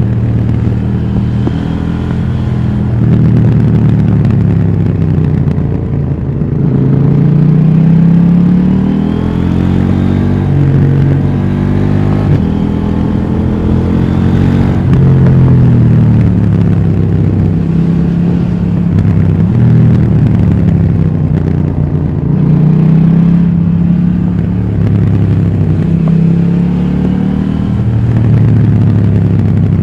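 KTM 790 Duke's parallel-twin engine through its stock exhaust while riding, the revs climbing and dropping back several times as the bike accelerates and eases off.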